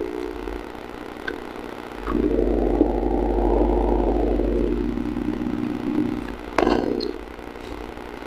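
Close-miked crunching and gritty grinding as pieces of baked clay pot are bitten and chewed. A few small clicks lead into about four seconds of dense grinding, and a sharp crack about six and a half seconds in marks a fresh bite snapping a piece.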